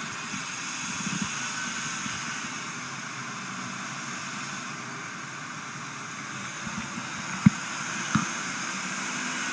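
Steady rushing noise of airflow and engine inside a jet's cockpit in flight. Near the end come two short clicks about half a second apart.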